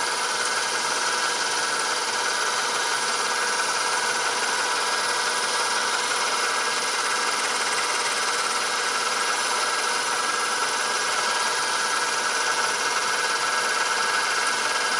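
Lathe running steadily with its spindle turning, a constant motor and gear whine with a faint regular low pulse underneath.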